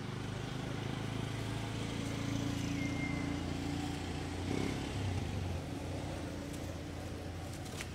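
A motor vehicle's engine running steadily with a low hum. It grows louder toward the middle and then eases off, as a vehicle does when it passes slowly.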